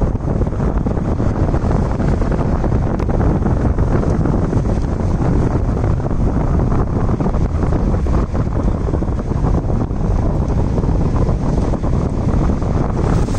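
Wind buffeting the microphone of a moving vehicle: a loud, steady rumbling rush.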